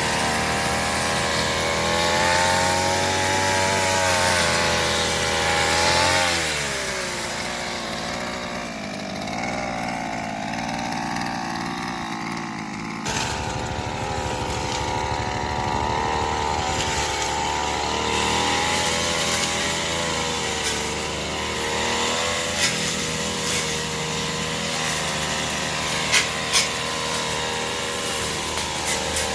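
Small two-stroke brush cutter engine running hard while cutting roadside grass, its pitch wavering with the load and dropping about six seconds in. A few sharp clicks come near the end.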